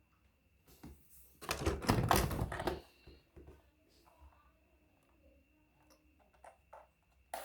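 Rapid clattering clicks for about a second and a half, then a few scattered single clicks: a toy vehicle being handled.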